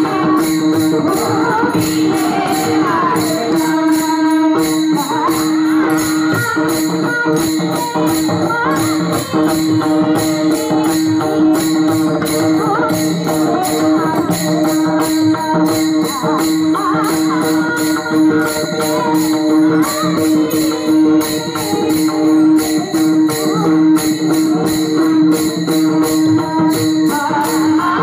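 Marathi Warkari bhajan in Bhairavi: a group of brass taal hand cymbals clashing in a steady rhythm, about three to four strikes a second, over a constant veena drone, with voices singing the melody.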